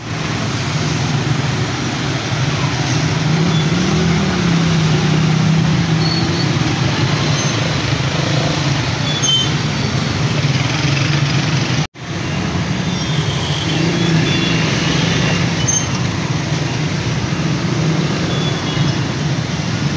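Heavy diesel engine of a crawler crane running steadily under load as it lifts a concrete bridge girder, its note rising and falling a little a few seconds in and again later. The sound breaks off for an instant near the middle.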